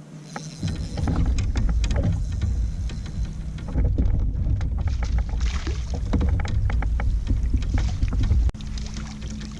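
Water splashing and slapping against the hull of a moving kayak, with wind buffeting the microphone as a heavy low rumble that sets in about half a second in and eases near the end.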